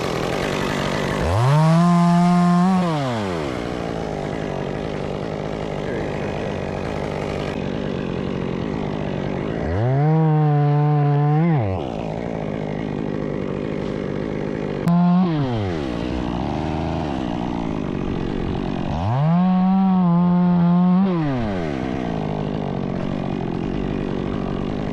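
Chainsaw engine revved up to full throttle, held briefly and let back down, three times, with a short blip of throttle in between.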